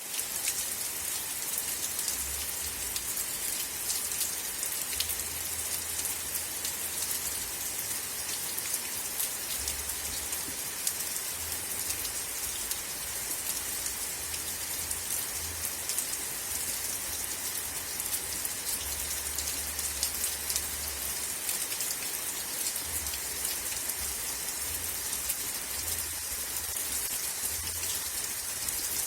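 Steady rain falling, an even hiss sprinkled with many individual drop ticks, with a low rumble coming and going underneath.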